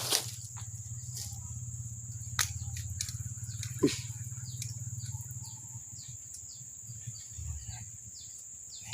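Fishing reel being cranked in after a strike on the right-hand rod: a low, rapidly ticking whirr that fades out about six seconds in, with a few sharp clicks. Birds chirp and a steady high-pitched drone carries on behind.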